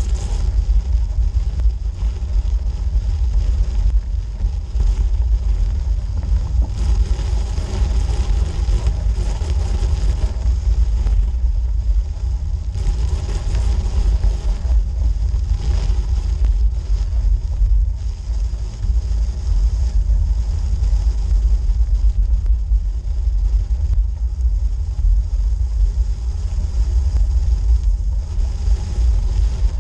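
Steady low rumble of a road bike rolling slowly uphill over a snow-covered forest road, tyre and frame vibration carried into the bike-mounted GoPro, with stretches of brighter hiss over it.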